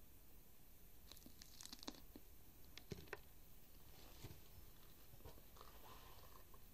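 Faint crunching of a raw green pepper being bitten and chewed, a few crisp crunches in the first few seconds.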